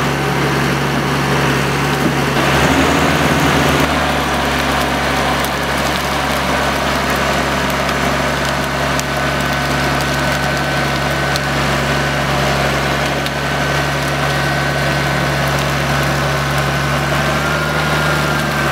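John Deere 1110D forwarder's diesel engine running steadily, its pitch shifting briefly about three seconds in. A thin high whine sits in the sound from about six seconds in.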